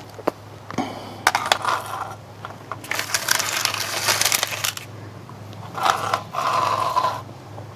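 Irregular metallic clinking and scraping of hand tools and hardware on steel, with a longer scrape about six seconds in.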